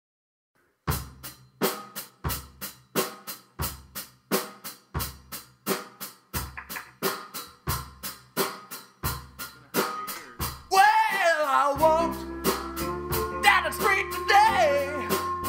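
Indie rock song opening with a drum kit alone playing a steady kick-and-snare beat; about eleven seconds in a singing voice enters, joined by bass and other instruments.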